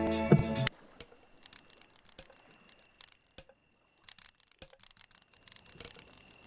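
Guitar music that cuts off suddenly under a second in, followed by faint, irregular small clicks and ticks over a low background with a thin steady high tone.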